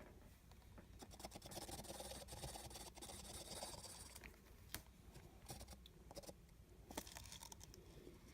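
Faint rustling and scraping handling noises, with small ticks and two sharper clicks, one about the middle and one near the end.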